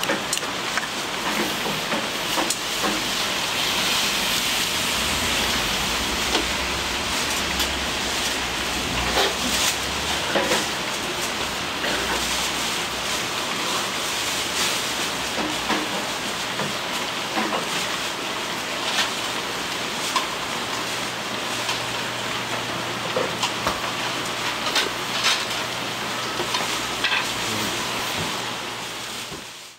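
A steady hiss with scattered clinks and knocks, and a low hum that comes in about two-thirds of the way through.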